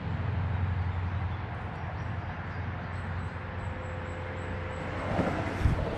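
Steady outdoor background noise: a low, even rumble under a faint hiss, with a brief rustle just after five seconds in.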